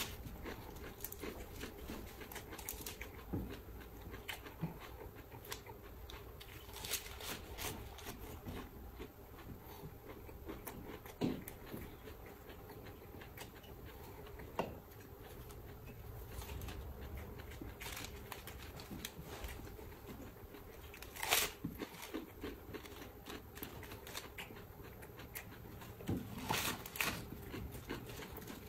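Raw lettuce leaves being bitten and chewed, with scattered crisp crunches and a few louder ones now and then.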